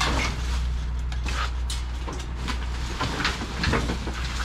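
Boxes and household items being handled and shifted: irregular rustling, scraping and knocks, a cluster of louder ones a little past halfway, over a steady low hum.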